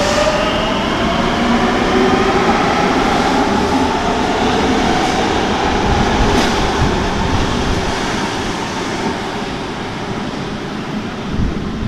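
Madrid Metro Serie 9000 electric train pulling out and running past. The traction motor whine rises in pitch as it accelerates in the first couple of seconds, under a loud rumble of wheels on rail as the cars go by. The rumble fades away after about eight seconds as the train enters the tunnel.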